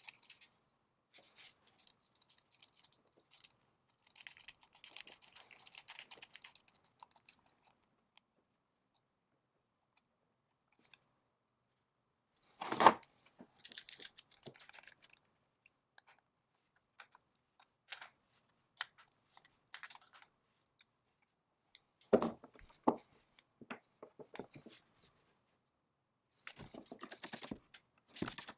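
Handling and unscrewing the brass fittings of an antique blower: small metallic clicks and scrapes, one sharp metal knock about halfway through and two more later. Near the end come a few quick spritzes from a spray bottle.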